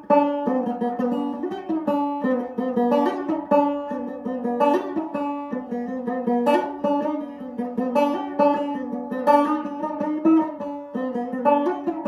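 Solo banjo played by plucking, a steady stream of picked notes ringing over held, droning pitches, with a few notes sliding in pitch. The playing is free and exploratory rather than bluegrass picking.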